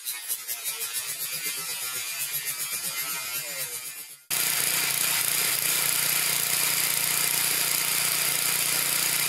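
Pressure washer's small Honda GC160 engine. For about four seconds it runs unevenly, pulsing and fading away, then the sound switches abruptly to steady loud running with a constant low hum.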